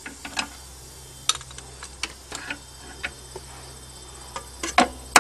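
Scattered light metal taps and clinks of a hammer and wrench against a seized alternator. Near the end, a run of quick, louder hammer blows begins, about four a second.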